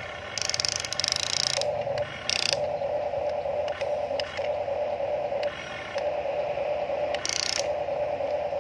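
Huina RC excavator's electric motors and gearboxes working, a steady mid-pitched whine that drops out briefly now and then. Three short grinding, ratchety gear bursts come on top of it: one of about a second near the start, a brief one about two seconds in, and another about seven seconds in.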